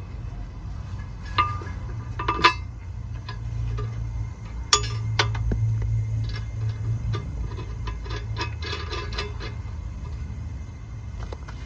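Metal tools and parts clinking and clanking, with sharp ringing knocks about 1.5, 2.5 and 5 seconds in and a quick run of lighter clinks later, over a steady low hum.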